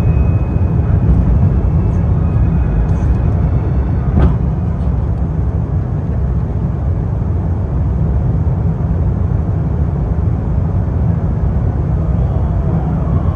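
Steady roar of an airliner's jet engines and airflow heard inside the passenger cabin during the descent to land, with one short knock about four seconds in and a faint rising whine near the end.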